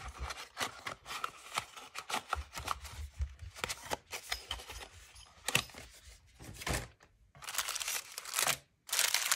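Clear plastic packaging bags crinkling and rustling as they are handled, with light clicks and scrapes from a small cardboard box being closed; the rustling is densest near the end.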